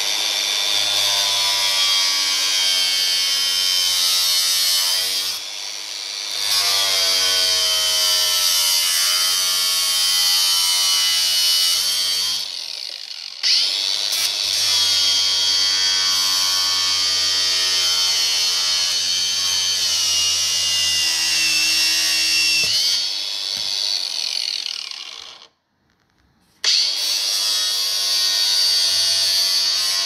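Ryobi 18 V cordless angle grinder cutting through a sheet-steel heat shield: a steady high whine with a grinding rasp, its pitch sagging as the disc bites. It eases off a couple of times, stops for about a second near the end, then runs again.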